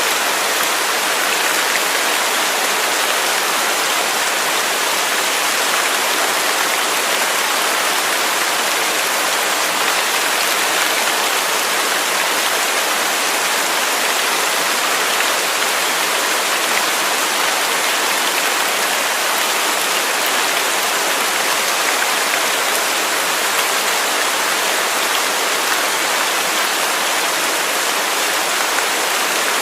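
Waterfall: water rushing in a steady, unbroken hiss.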